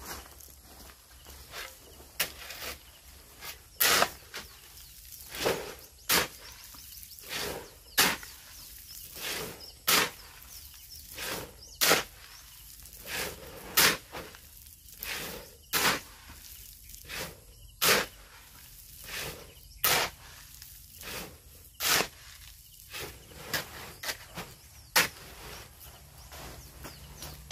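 Sharp knocks repeating about every two seconds, with fainter knocks in between, over a low steady hum.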